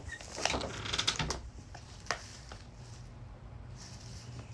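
Quiet room tone with a few faint clicks and rustles in the first second and a half and one more short click about two seconds in.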